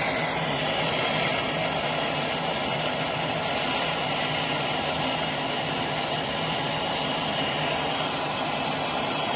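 Handheld gas torch burning with a steady hiss, its flame heating the piston to free a seized wrist pin.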